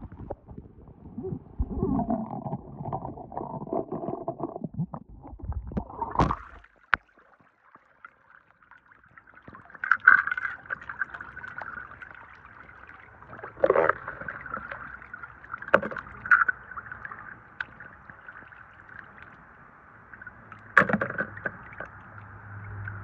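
Water splashing and sloshing as small toy cars are handled in it, with several sharp knocks and splashes as toys are dropped into a plastic basin of water.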